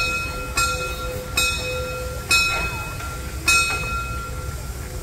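A metal bell struck about five times, unevenly, roughly once a second, each strike ringing on in a clear high tone. Under it runs the low rumble of a steam locomotive moving slowly past.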